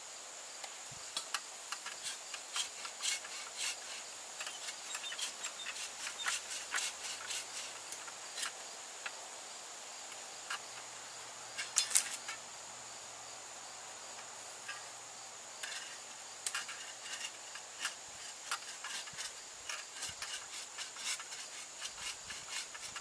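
Scattered sharp cracks and snaps of wood, irregular, with the loudest cluster about twelve seconds in, over a steady high-pitched drone of insects.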